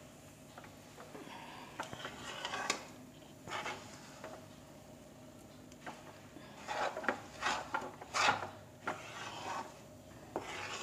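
A metal spatula scraping and stirring a thick mass of sesame seeds and jaggery syrup around a metal kadai, in irregular strokes that come thickest in the second half. The seeds are being mixed into the hot syrup for chikki.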